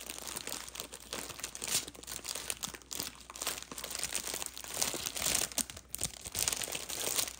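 Small plastic bags of diamond painting drills crinkling and rustling unevenly as they are handled and rummaged through by hand.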